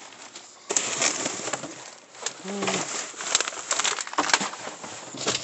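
Plastic trash bags crinkling and rustling as gloved hands dig through them, in irregular bursts of crackling that start about a second in.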